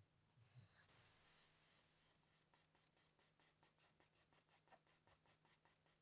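Faint, quick back-and-forth rubbing strokes on a watch part being polished by hand. The strokes settle into a steady rhythm of about five a second from midway, over a steady low hum.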